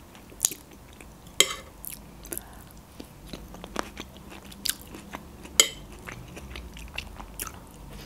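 Close-miked eating sounds: chewing crunchy Greek salad, with crisp crunches, wet mouth clicks and smacks scattered irregularly, a few much louder than the rest.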